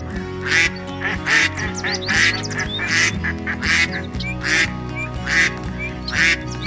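Duck quacking in a regular series of short, harsh calls, about one every 0.8 seconds, over background music.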